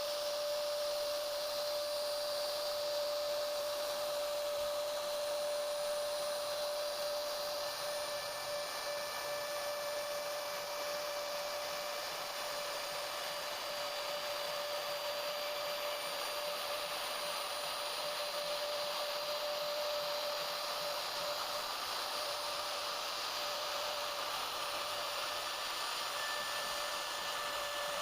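Homemade CNC router's spindle running steadily while carving wood: a constant whine over a rushing hiss.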